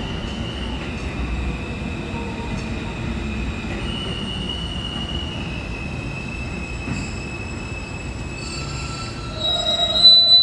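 R160 subway train pulling into the station with its wheels squealing on the rails over the rumble of the cars. The squeals are long and steady and step in pitch, and a louder, higher squeal comes near the end as the train slows.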